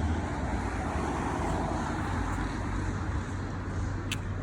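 Street traffic noise: a steady low rumble with a swell of passing-car sound about a second or two in, and one short click near the end.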